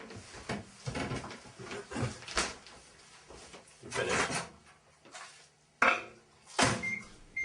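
Breakfast crockery and cutlery clattering, a string of separate knocks and clinks with a louder clatter about four seconds in. A few short, high electronic beeps follow near the end.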